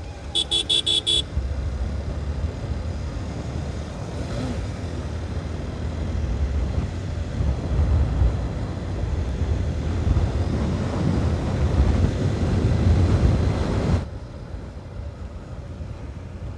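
A vehicle horn beeps about five times in quick succession, then the low rumble of wind and road noise on a moving motorcycle grows louder and drops off suddenly about fourteen seconds in.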